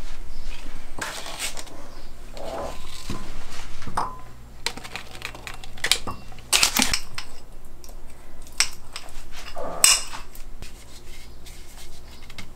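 A fork and small ceramic bowls clinking and knocking on a stone countertop and a plastic cutting board, mixed with the crackle of a plastic berry clamshell being handled. The clinks and rustles come irregularly, with the loudest clatter about halfway through and again near the end.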